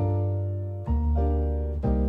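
Background music led by piano over a bass line, with new chords struck about once a second.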